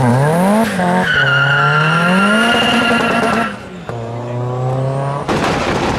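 Tuned Volkswagen Golf Mk1 engine revving twice, the second rev climbing and held for about two seconds with a high steady squeal over it. After a cut about halfway, a car engine runs steadily at low revs, then a burst of rushing noise comes near the end.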